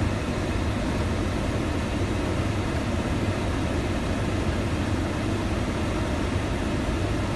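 A vehicle's engine rumbling under a steady hiss of rain on the windscreen and body, heard from inside the cab.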